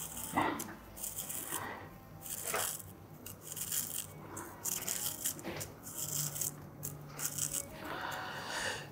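Kitchen knife paring the skin off a piece of slimy Japanese yam held in the hand: a series of short, soft scraping strokes, irregularly spaced.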